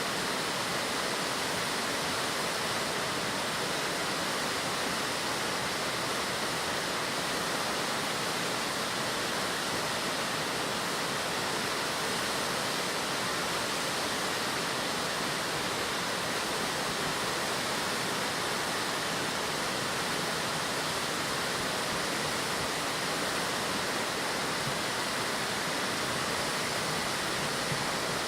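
Hakusen waterfall's heavy flow of water pouring and splashing down in a steady, unbroken rush.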